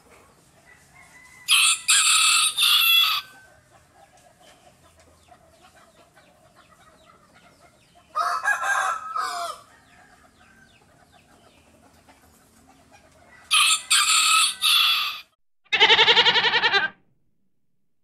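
A rooster crows three times, each crow about a second and a half long and several seconds apart. Near the end comes one wavering goat bleat.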